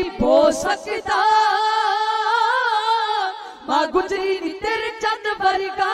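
A woman singing in Punjabi dhadi style: one long held, wavering note, then, after a short break about halfway through, more ornamented sung phrases. Light taps on the dhadd, the small hourglass drum, run under the voice.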